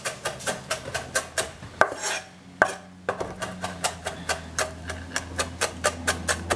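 Chef's knife chopping flat-leaf parsley on a wooden cutting board: quick, even knocks of the blade on the board, about four to five a second, with a brief pause a little after two seconds in.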